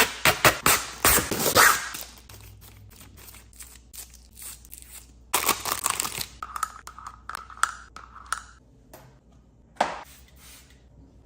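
Handling of a phone tripod and its plastic packaging: crinkling, tearing and sharp clicks, busiest in the first two seconds. A squeaky scraping runs for a couple of seconds past the middle, and one more sharp click comes near the end.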